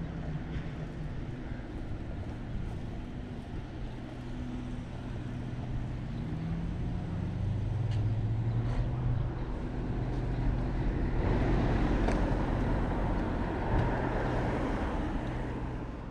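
Bicycle riding along a paved path and road, with the steady rumble of tyres and wind on the handlebar-mounted microphone. The hum of car traffic builds over the last several seconds and becomes the loudest sound.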